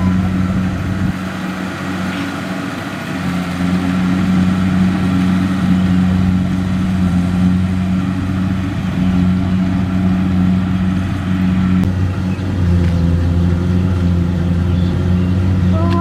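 Kubota DC-70Plus combine harvester running steadily as it cuts and threshes rice, its diesel engine a loud, even low hum. The engine note shifts slightly about three quarters of the way through.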